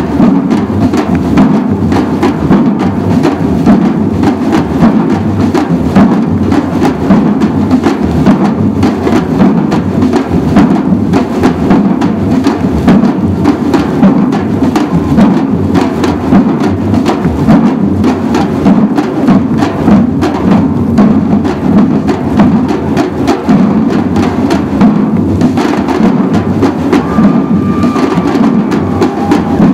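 A large samba drum group playing together on stick-struck drums: a dense, steady batucada rhythm with a repeating deep bass-drum pattern underneath.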